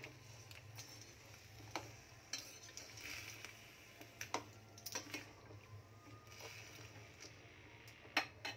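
A metal spoon stirring diced carrots with a little water in a stainless steel pan, giving scattered faint scrapes and clinks against the pan, with two louder clinks close together near the end. A faint low hum runs underneath.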